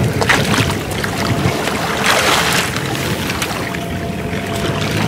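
Shallow floodwater splashing and sloshing among rice plants as people wade and handle traps in it, in irregular splashes with a louder burst about two seconds in, and wind buffeting the microphone.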